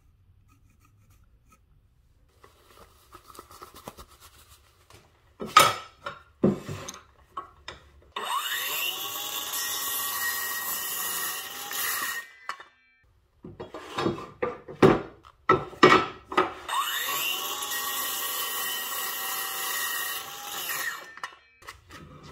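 Kobalt 24V brushless cordless circular saw cutting two 2x4 boards to length, one cut after the other, each about four seconds with the blade spinning up at the start and winding down at the end. Knocks and clatter of the boards and saw being handled come before each cut.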